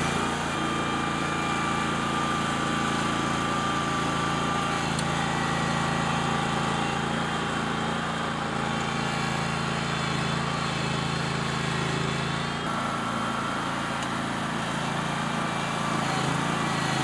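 Riding lawn tractor's small engine running steadily under load as it pulls a walking plow through grass sod.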